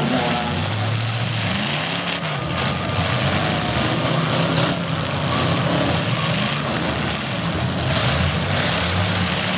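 Engines of full-size demolition derby cars revving hard, the pitch rising and falling again and again, with a few short knocks in between.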